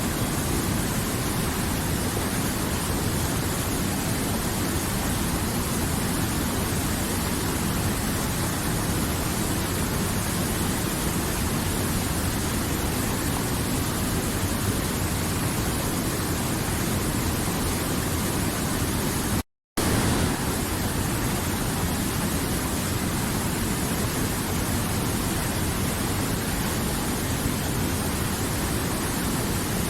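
River water flowing: a steady, even rushing. It cuts out completely for a split second about two-thirds of the way through.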